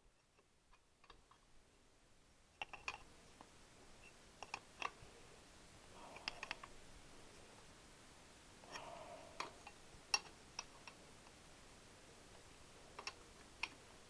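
Faint, scattered light clicks and taps, with a couple of brief soft rustles, from hand tools and small parts being handled during motorcycle engine work.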